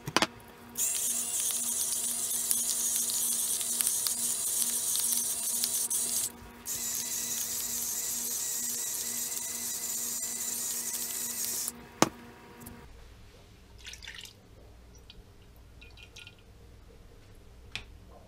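Steady rushing like running water, starting about a second in, breaking off briefly near the middle, then running on until a sharp click, after which only a few small clicks are heard.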